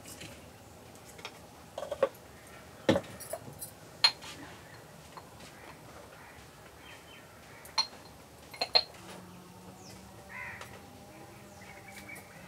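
Several sharp clinks and taps of clay and glazed ceramic spice jars and a metal spoon being handled while seasoning a pot, a few of them ringing briefly, spread out with quiet gaps between.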